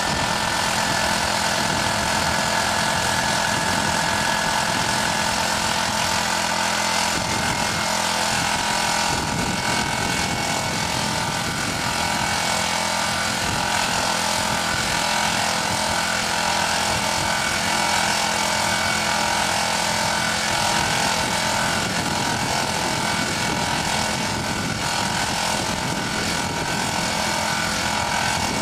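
Small engine of a backpack suction pump running steadily, drawing air through a sampling tube and filter to collect explosive vapour for remote explosive scent tracing.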